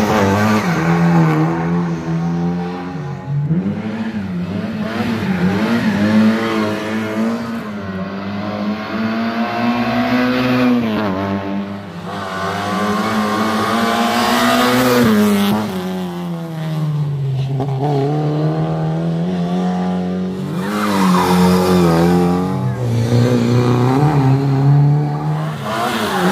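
Lada 2107 rally car's four-cylinder engine revving hard under full acceleration, its pitch climbing and then dropping at each gear change, several times over.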